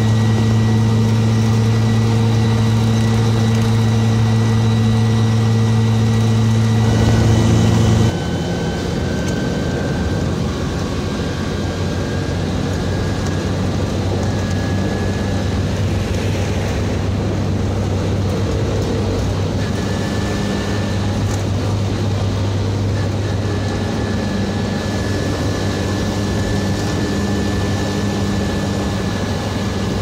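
Old car driving at highway speed, heard from inside the cabin: a steady engine drone with a thin high whine. About eight seconds in, the sound steps down in pitch and level, then slowly climbs again as the car keeps going.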